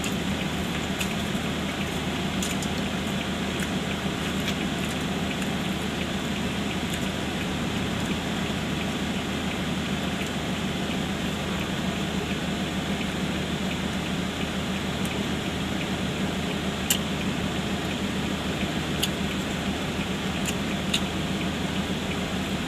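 Steady hum of a car cabin with the vehicle running, and scattered small crisp clicks and smacks of someone eating fried chicken, loudest about seventeen and twenty-one seconds in.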